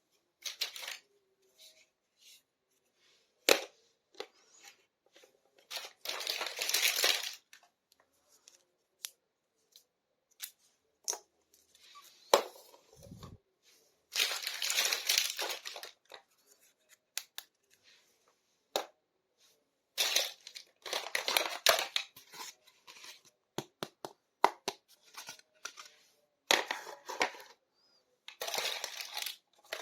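Toy packaging being crinkled and torn open in short bursts of rustling, with sharp clicks and taps of small plastic toy kitchen pieces being handled in between.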